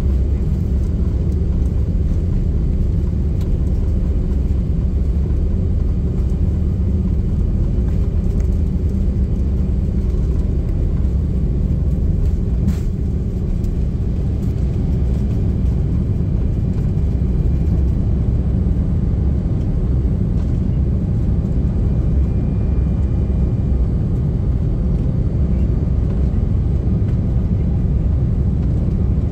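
Steady low rumble of an Airbus A340-600 heard from inside the passenger cabin, even throughout with no spool-up or change in pitch. A single faint click sounds about halfway through.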